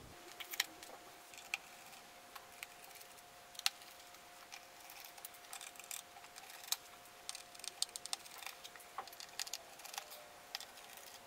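Faint, irregular small clicks and ticks of a small screwdriver turning out the screws of a MacBook Pro's aluminium bottom case, coming more often in the second half, over a faint steady hum.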